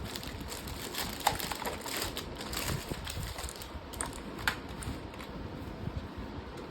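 Packaging being handled while unboxing a mechanical keyboard: irregular crinkling and small clicks, with two sharper clicks, about a second in and about four and a half seconds in, then quieter.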